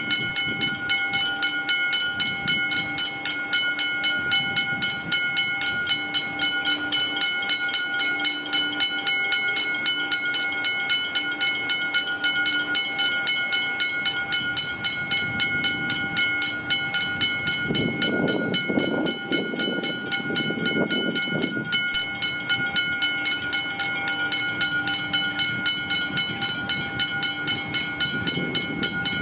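Level crossing warning bells ringing steadily in a rapid, evenly repeating pulse. A suburban electric train adds a low rumble about 18 to 21 seconds in.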